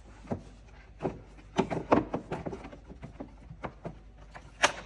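Plastic knocks, rattles and clicks as a new panel engine air filter is pushed into its plastic airbox and the housing is closed up, with a sharp click near the end.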